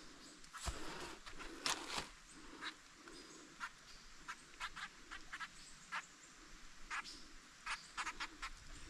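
Scattered light clicks and crinkles of hands handling a small catfish on the hook, with fishing line and a plastic bag, several to a second at times.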